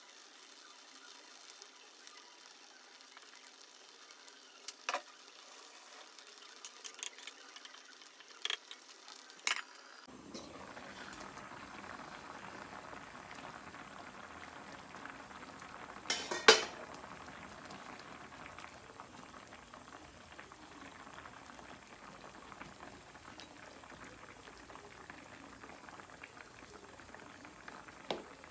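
Tuna in coconut milk bubbling as it simmers in a pan, with a few sharp clicks of a utensil against the pan. About ten seconds in the bubbling becomes louder and fuller, and a single loud clink comes near the middle.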